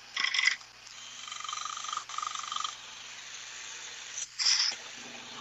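Mini 1x30 belt sander running with a low steady hum, a kitchen knife blade pressed to the moving belt in three short grinding passes, the middle one longer and steadier, as the blade is sharpened.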